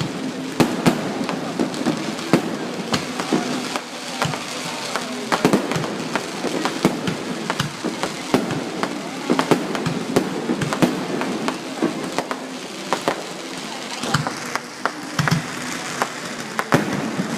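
Aerial fireworks display going off continuously, a rapid run of sharp bangs and crackling bursts one after another.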